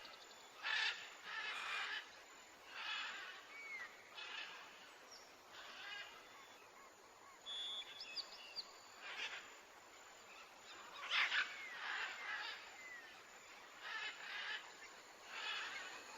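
Birds calling and chirping in short separate bursts, about one every second or two, some with brief sliding notes.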